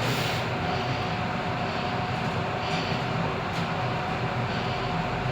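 Mitsubishi passenger lift car travelling in its shaft: a steady rumble with a faint, constant whine.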